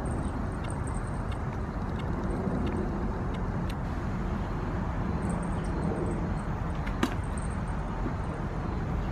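Steady outdoor background rumble, the kind a distant road gives, with one sharp knock about seven seconds in.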